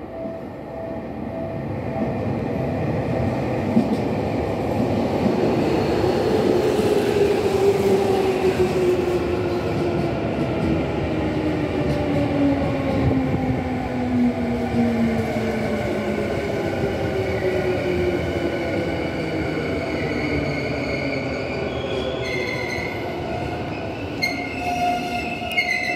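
A Tokyu 5050 series electric commuter train arriving and braking into the platform. It grows louder over the first few seconds, and the whine of its traction motors falls steadily in pitch as it slows over the rumble of wheels on rail. Near the end come short, high squeals as it draws to a stop.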